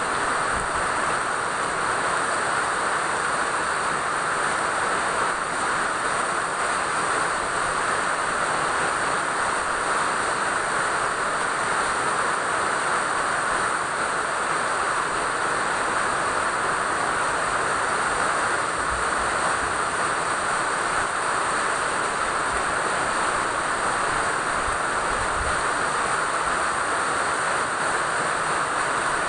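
Steady rain falling, a constant even hiss with no breaks.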